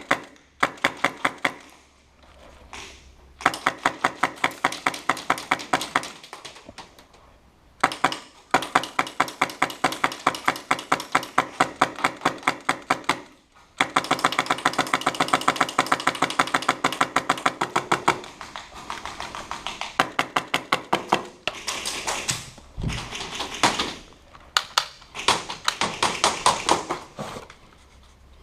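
Airsoft guns firing rapid full-auto bursts, a fast even clatter of shots in long strings of several seconds with short breaks between them, echoing in a small indoor room.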